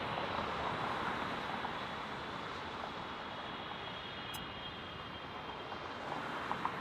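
Jet airliner engines running as a steady rush of noise, with a faint high whine in the middle that then eases off.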